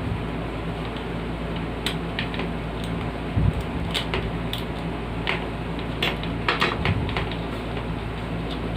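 Scattered clicks and light knocks from handling the plastic parts of a box fan during repair and cleaning, with a couple of duller thumps. A steady low hum runs underneath.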